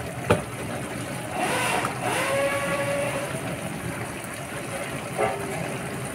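Pancit bato noodles and sauce simmering in a frying pan on a stove: a steady bubbling hiss, with a light knock just after the start and another about five seconds in.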